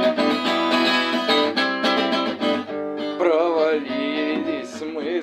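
Acoustic guitar strumming chords in a song. About three seconds in, a wavering, wordless sung note comes in over the guitar.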